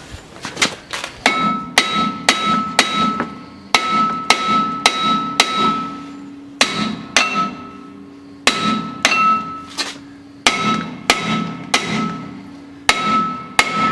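Hammer blows on a front brake rotor that is rusted fast to the hub, about two strikes a second in bunches with short pauses, each strike leaving the rotor ringing with a clear metallic tone.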